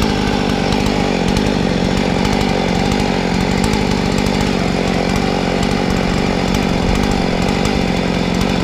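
Husqvarna 55 chainsaw's two-stroke engine running steadily, its pitch holding level throughout.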